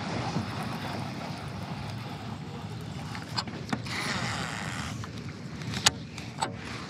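Steady wind noise on the microphone over a kayak on open water, with a few light clicks from handling the baitcasting reel and a brief patch of brighter hiss about four seconds in.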